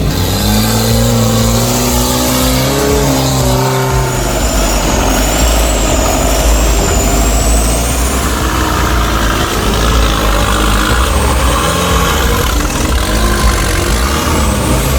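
Off-road 4x4 engine revving, its pitch rising over the first few seconds, then running hard under load, with a thin high whine for a few seconds near the middle.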